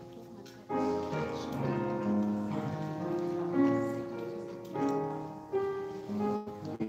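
Grand piano playing slow, sustained chords and melody notes. It is soft at first and fills out just under a second in.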